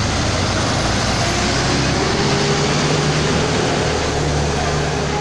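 Tour bus engines running as buses drive past one after another in a convoy: a steady low engine hum over road noise.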